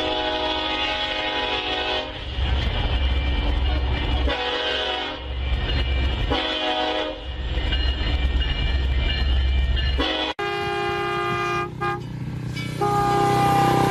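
Union Pacific diesel locomotive sounding its multi-chime air horn in several blasts as it passes close by, with a heavy low engine rumble between the blasts. About ten seconds in, the sound cuts abruptly to a different recording with another horn-like chord, broken once.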